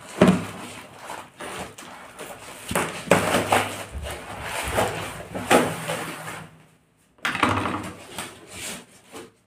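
Plastic wrap and foam packing sheet rustling and crinkling as a taped cardboard parcel is torn open and its padding pulled out, with several sharper rips and a short pause about seven seconds in.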